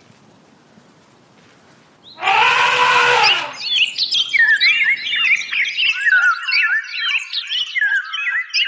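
Faint background at first, then about two seconds in a loud animal call lasting just over a second that rises and falls in pitch. A flock of birds then chirps and whistles together, many quick overlapping calls.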